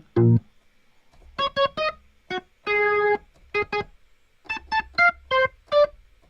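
A software keyboard instrument in Logic Pro, played from a MIDI keyboard controller: a string of short single notes at varying pitches, with one longer held note about three seconds in.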